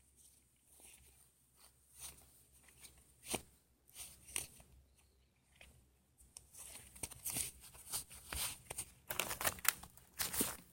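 Dead potato plants being pulled up by hand: dry stems and leaves rustling and crunching, with tearing as they come out of the soil. Scattered crackles at first, then denser bursts from about halfway through.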